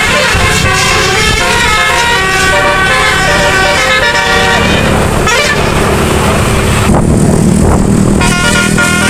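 Bus's multi-trumpet telolet musical air horn playing a quick tune of changing notes over the low running of the bus. The horn breaks off for about a second around seven seconds in, leaving only the low rumble, and then plays again.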